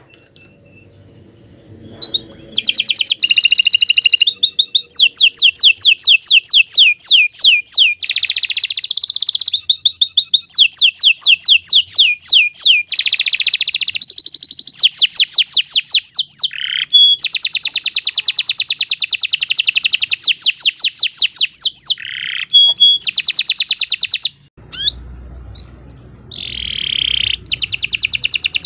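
Domestic canary singing a long, vigorous song of fast trills and rolling repeated notes, starting about two seconds in with a few short pauses.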